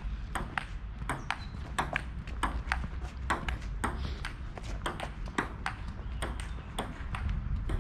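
Table tennis ball clicking in a rally, paddle hits and table bounces coming quick and uneven a few times a second, over a low outdoor rumble.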